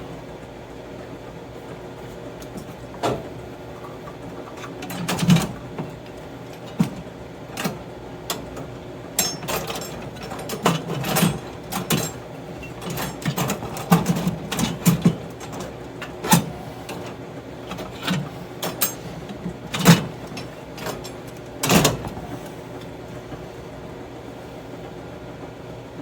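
A steady machine hum with irregular knocks and clatter: about a dozen sharp knocks and clicks, bunched between about 3 and 22 seconds in, some coming in quick runs.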